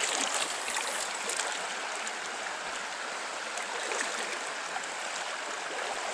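River water rushing steadily past in a strong current.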